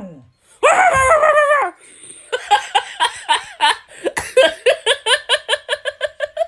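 A dog-like voice gives one wavering howl, then a fast run of short, high yips, three to four a second.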